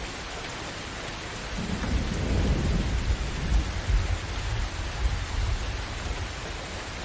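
Steady heavy rain with a deep rumble of thunder that swells about a second and a half in, peaks around the middle and rolls away before the end.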